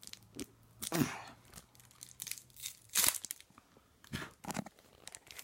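A trading-card pack wrapper being torn open and crinkled by hand, a series of short rips and rustles, the loudest about three seconds in.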